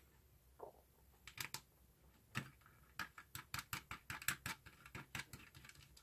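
Faint, irregular light clicks and taps of wire leads and ring terminals being handled and fastened onto an op-amp kit board's terminal posts; a few isolated clicks at first, then many in quick succession from about three seconds in.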